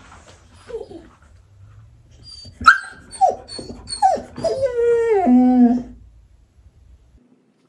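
English cream golden retriever puppy crying alone in its crate. A sharp yelp comes about two and a half seconds in, then several short falling yelps and a longer drawn-out whining cry that ends about six seconds in. This is the distress of a puppy with separation anxiety at being left alone.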